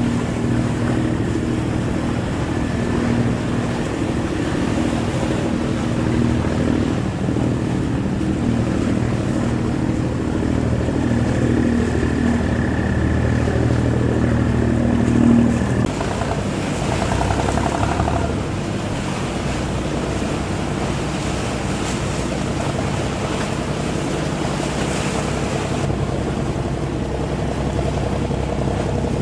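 A boat's engine running steadily, with wind and water noise; the engine sound changes abruptly about halfway through.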